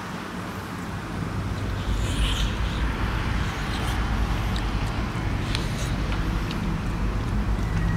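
A low engine hum runs steadily and grows louder about two seconds in. Scattered small clicks from eating the roast chicken sound over it.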